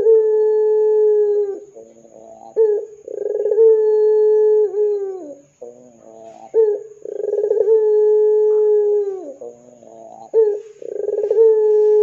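Ringneck dove (burung puter) cooing repeatedly: each call is a short rolling, stuttering note followed by a long drawn-out coo that holds steady and then drops off. The call repeats about every three and a half seconds, three times over.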